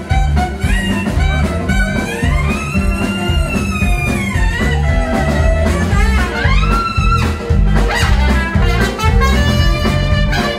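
Live band playing a swing-blues number: trumpet and saxophone over electric guitar and drums, the horn line bending and sliding through long notes.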